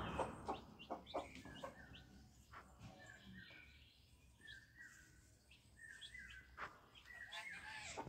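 Young aseel chicks giving soft, short chirping calls, a few a second, from about three seconds in.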